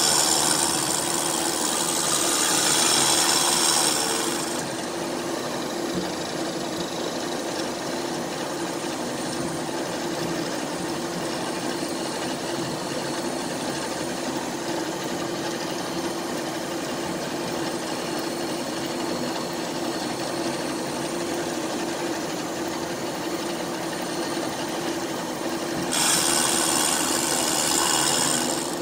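A powered rotary burr cutting into the cast-iron combustion chamber of a Ford Kent cylinder head, porting the chamber. The tool's motor runs with a steady hum. A loud, bright cutting noise rides over it for the first four seconds or so and comes back a few seconds before the end, with quieter cutting in between.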